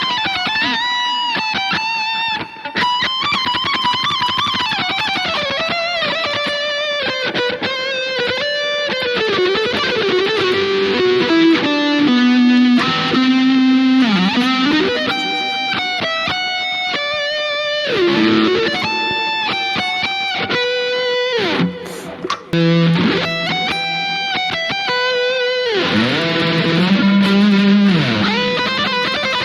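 Harley Benton Fusion electric guitar playing lead lines: held notes with bends and vibrato, broken up by stretches of fast note runs, with a couple of brief breaks.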